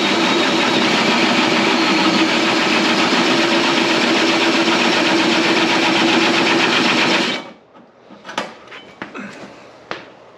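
A drill running a hole saw through sheet metal, a steady loud cutting noise that stops abruptly about seven seconds in. A few light clicks and knocks of handling follow.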